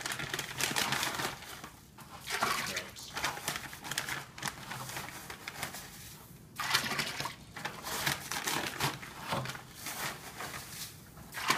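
Salt scooped by the cupful from a plastic bag and poured into a plastic bin of hot water to make a brining solution, in about five separate pours, with the bag crinkling.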